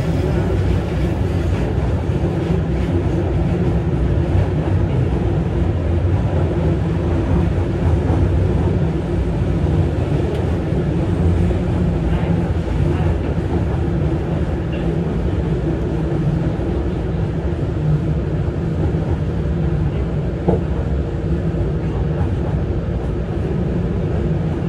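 Keihan Katano Line train heard from inside the passenger car while running: a steady rumble of wheels on rail with a faint steady hum under it, and one short sharp click late on.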